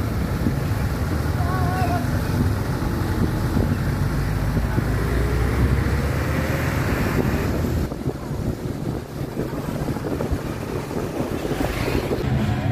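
Dense outdoor rumble with wind buffeting the microphone; the sound drops and changes about eight seconds in.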